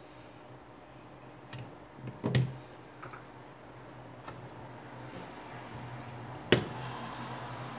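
Scattered light clicks and taps of small metal hand tools, tweezers and scissors, being handled and set down on a silicone repair mat, with a sharp click about six and a half seconds in followed by soft rustling. A low steady hum runs underneath.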